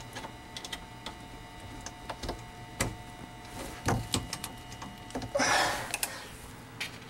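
Small metallic clicks and taps as the nut of a braided stainless-steel dishwasher supply hose is threaded by hand onto a brass compression tee, with a brief rustling swish about five seconds in, over a faint steady hum.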